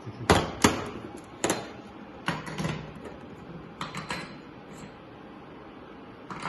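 Metal transmission parts clinking and knocking as they are handled during an automatic gearbox teardown: a quick run of sharp knocks in the first couple of seconds, two more about four seconds in, then only faint shop background.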